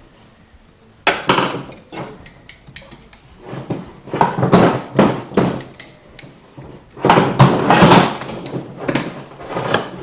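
Bursts of scraping, knocking and clatter from hands-on work on a snowmobile's parts, separated by short pauses. The loudest stretch comes about seven to eight seconds in.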